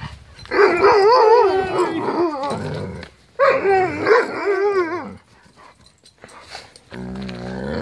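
Alaskan Malamute vocalizing in two long, wavering, howl-like calls, each a couple of seconds long, then a lower, steadier call near the end.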